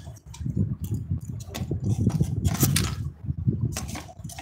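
Gusty wind buffeting the microphone, an uneven low rumble, with a few short hissing crackles.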